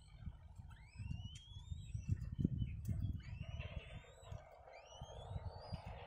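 Black-winged kites at the nest giving high, rising whistled calls, about one a second, while the chicks are being fed, over low rumbling thuds.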